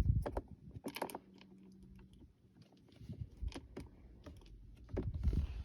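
Scattered light clicks and taps of a Phillips screwdriver working a screw out of a car's console shift knob. There is a sharper click about a second in and a run of duller knocks near the end.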